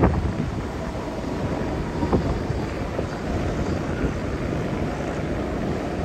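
Wind buffeting the microphone as a steady low rumble, with a few faint brief knocks.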